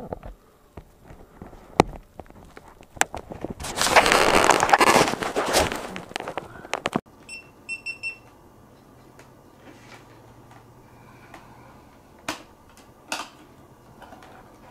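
Motorcycle helmet being pulled off, a loud rustling scrape lasting a few seconds, followed by a short run of high electronic beeps from the GoPro Hero2 camera and scattered clicks of its plastic housing being handled.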